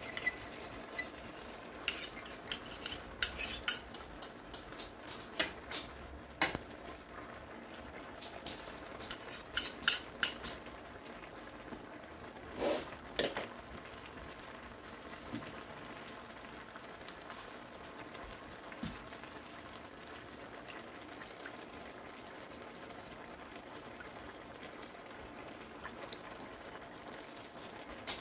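Chow mein noodles frying in a wok with a steady sizzle. A utensil clicks and knocks against the wok again and again for roughly the first ten seconds of stirring, with two louder knocks a little later, then only the sizzle goes on.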